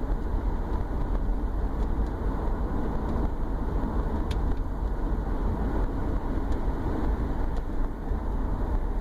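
2011 Subaru Forester driving, with a steady low drone under the road and engine noise. The drone began after the engine was removed to fix an oil leak, and its cause is unknown; it comes under light load with the torque converter unlocked, between 1,000 and 1,500 rpm.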